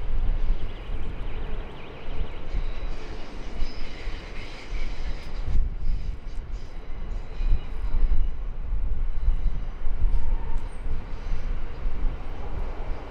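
High Capacity Metro Train, an electric suburban multiple unit, running past along the tracks with a low, uneven rumble.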